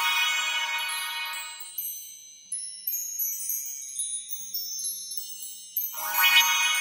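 Sparkly chime sound effects of a logo sting: a bright shimmering swell fades over the first two seconds, scattered high tinkling notes follow, and a second shimmering swell comes in about six seconds in.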